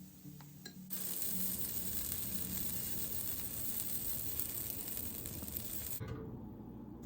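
Pancake batter sizzling in a hot pan, a steady hiss that starts abruptly about a second in and cuts off sharply near the end.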